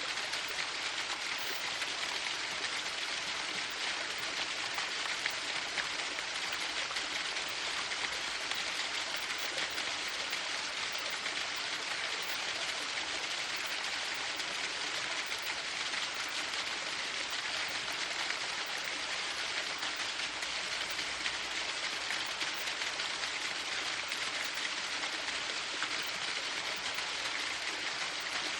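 Waterfall: a steady, even rush of falling water, high and hissing with little low rumble.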